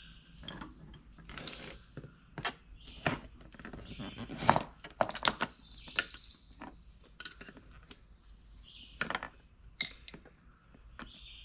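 Screwdriver prying a small wheelbarrow tire (4.10/3.50-4) off its rim: irregular clicks, knocks and scrapes of metal on the rim and rubber as the bead is worked off. A steady high insect trill runs behind.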